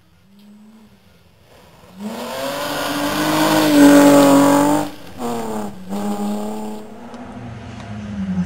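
A BMW 325i rally car's straight-six engine at full throttle: it comes in suddenly about two seconds in, climbs in pitch to its loudest at about four seconds as the car passes, breaks off sharply twice, then runs on at a lower, steadier note.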